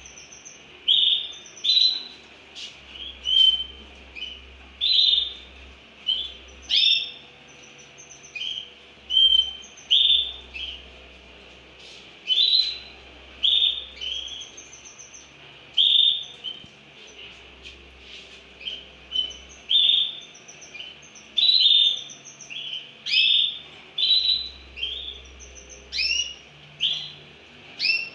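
Young domestic canaries singing: repeated bursts of quick high chirps and trills, with now and then a sharp rising whistle.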